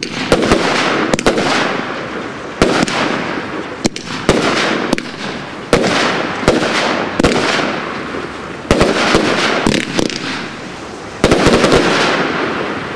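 Wolff Vuurwerk 'Hurricane' firework cake firing shot after shot: sharp bangs every second or so, some in quick clusters, each followed by a fading rush of sound as the aerial bursts open and spread.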